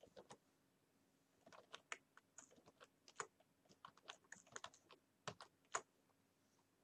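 Computer keyboard keys tapped in an irregular run of faint clicks, stopping about six seconds in.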